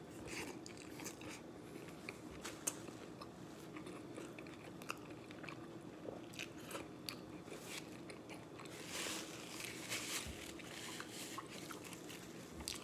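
Close-up chewing and mouth sounds of a man eating a flour-tortilla burrito fast: wet chewing, lip smacks and finger licking, with many small clicks and a short breathy hiss about nine seconds in.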